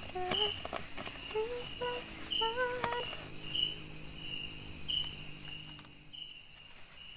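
Night-time forest insect chorus: a steady high-pitched drone, with a shorter chirp repeating about once a second.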